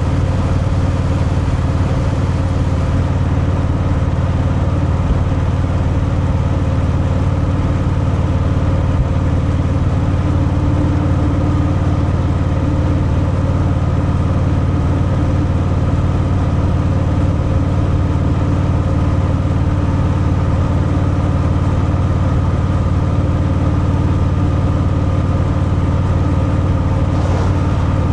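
Harley-Davidson Fat Boy's V-twin engine running steadily through its stock exhaust, holding an even pitch throughout.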